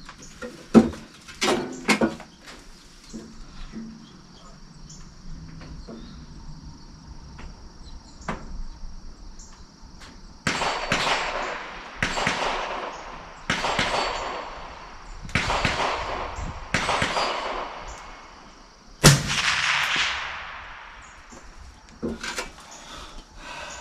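Suppressed .308 semi-automatic rifle firing: a sharp shot under a second in and another about 19 s in, each fading away. Between them comes a run of five shorter rushing bursts, each dying off over about a second.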